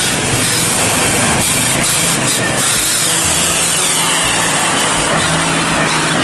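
Mitsubishi Fuso fuel tanker truck's diesel engine working hard as the truck pushes through deep mud, a steady loud rumble.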